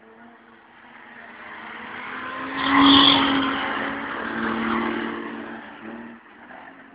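Stock car engines racing past at speed, growing louder to a peak about three seconds in as a car passes close, then fading away near the end.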